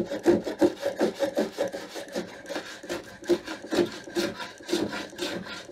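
Small metal hand plane taking fine shavings as it flushes the dovetail joints of a wooden box: short, quick rasping strokes, spacing out in the second half.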